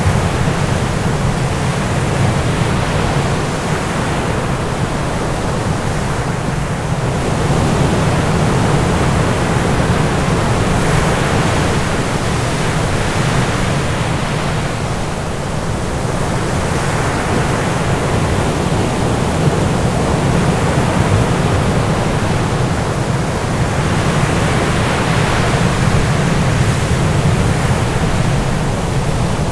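Loud, dense rushing noise with a deep rumble beneath it, swelling and easing every several seconds like a wash of ocean surf.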